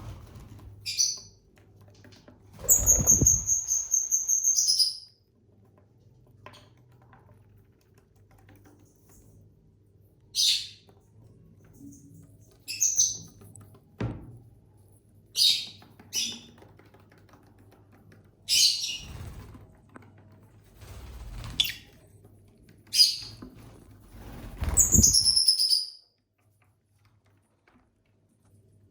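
Pet lovebirds chirping in short, scattered high calls, with a longer held shrill call about three seconds in and another near the end. A single light knock comes about halfway through.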